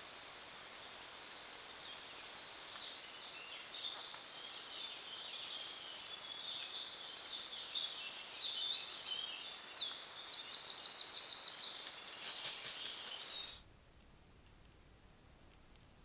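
Several wild songbirds singing in woodland, with overlapping chirps, phrases and fast trills over a steady hiss. Near the end the birdsong and hiss cut off abruptly to a quieter background, where one brief falling whistle sounds.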